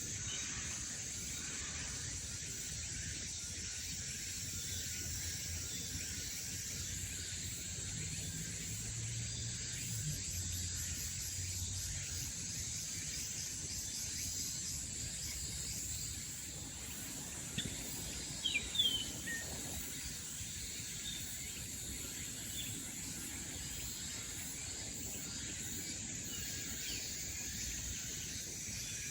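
Summer forest ambience: a steady high-pitched insect drone throughout, with a few short bird chirps, clustered about two-thirds of the way through.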